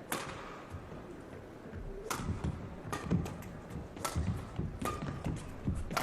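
Badminton rally: rackets striking the shuttlecock, a sharp crack about once a second, with low thuds of the players' footwork on the court between strokes.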